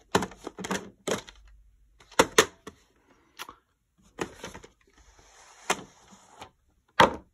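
Plastic VHS clamshell case and cassette handled and set down on a wooden shelf: a string of sharp, irregularly spaced clacks and knocks.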